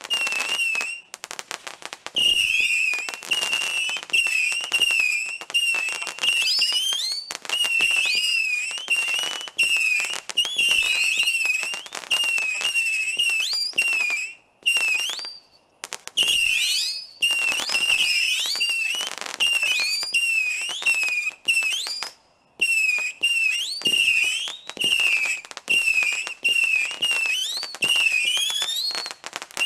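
Crilly's Dazzling Darts firework shooting a rapid stream of whistling darts: many short, wavering whistles overlap one after another, mixed with sharp pops. The firing pauses briefly about halfway through and again about three-quarters of the way through.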